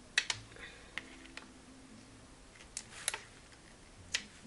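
Paper-craft materials being handled on a work surface: about six light clicks and taps, scattered and irregular.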